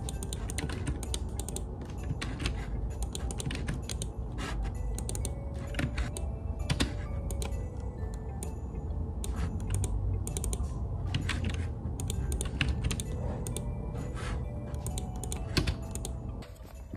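Typing on a computer keyboard: a fast, irregular run of key clicks, with soft background music underneath.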